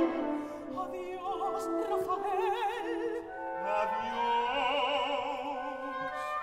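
Orchestra playing a quiet passage of a zarzuela duet for soprano and tenor, the violins' vibrato melody over held lower notes.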